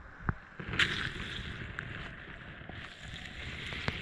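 Small waves washing up the sand and over a camera lying at the water's edge, with water sloshing around it, a surge about a second in, and a few sharp clicks.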